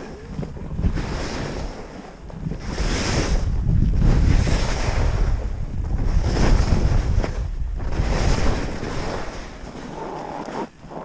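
Skis scraping and hissing over firm, tracked snow, with wind buffeting the microphone. The scraping swells in surges roughly every two seconds.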